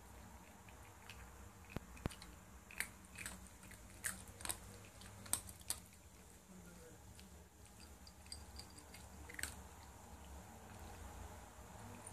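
Cats eating from bowls: quiet chewing with irregular sharp crunches, most of them bunched in the first half and one more near the end.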